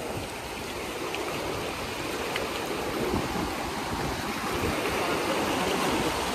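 Fast, shallow mountain river rushing over boulders and small rapids: a steady, even rush of water.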